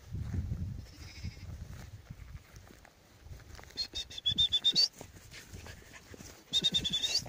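Two high-pitched animal calls that pulse rapidly, the first about four seconds in and the louder, the second shorter near the end, over a low rumble.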